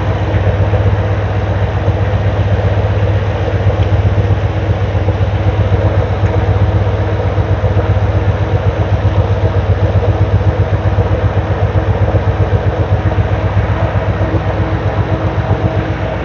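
1971 Chevrolet C10 pickup engine idling steadily with an even low pulse. A freshly replaced alternator is now charging.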